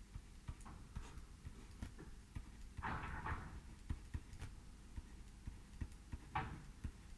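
Faint, irregular clicks and taps of a stylus on a tablet screen during handwriting, with two short soft rushes of noise, about three seconds in and near the end.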